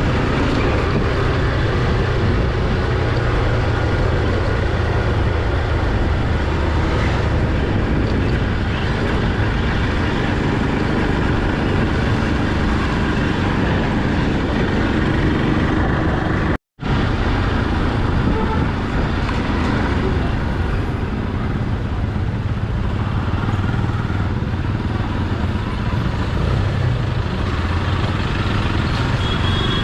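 Motorcycle running steadily under way, engine and road noise continuous. It cuts to silence for a split second about seventeen seconds in.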